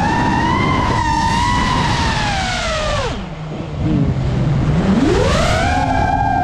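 FPV drone's brushless motors and propellers whining, the pitch following the throttle: a high steady whine that falls steeply to a low hum about three seconds in as the throttle is pulled back, then climbs back up about two seconds later as the throttle is opened again, over a rough rush of wind and prop wash.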